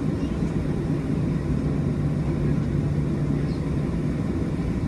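Steady cabin drone of a Boeing 737 in flight: engine and airflow noise with a constant low hum, unchanging throughout.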